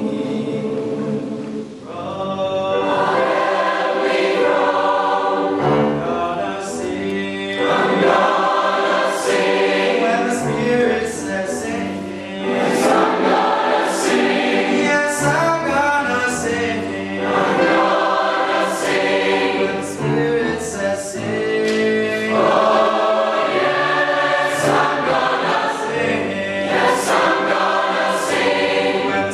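Large mixed choir singing a gospel song in full harmony, phrase after phrase.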